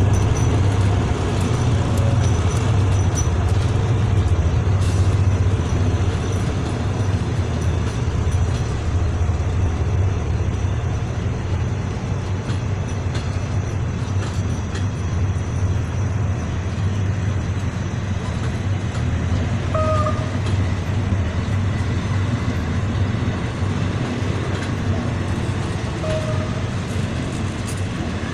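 Empty passenger coaches rolling past on the track, wheels on rails making a steady low rumble that eases slightly over time. A couple of brief squeaks come about two-thirds of the way through.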